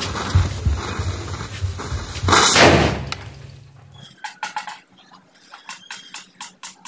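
Diwali firecrackers burning in a matchstick chain, hissing and crackling, with one loud whooshing burst a little past two seconds in. After a cut, a quick even run of sharp ticks, about four a second.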